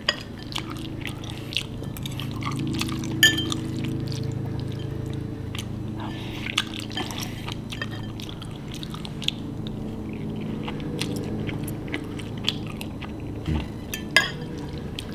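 Eating a bowl of mac and cheese: a spoon clinks against the bowl now and then with short ringing taps, amid soft chewing and mouth sounds, over a steady low hum.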